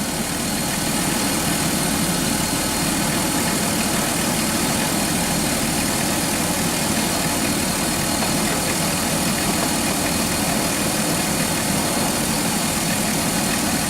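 2006 Dodge Grand Caravan engine idling steadily with the AC set to max during a refrigerant recharge; the AC compressor has not yet kicked on.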